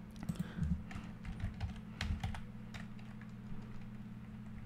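Typing on a computer keyboard: a run of irregular key clicks as a word is entered into a search box, thinning out after about two and a half seconds, over a low steady hum.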